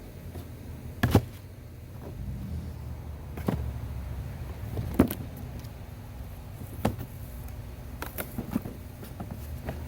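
Sharp knocks and clicks, five or so, from a new electric chainsaw and its parts being handled, over a low steady rumble; the loudest knock is about a second in.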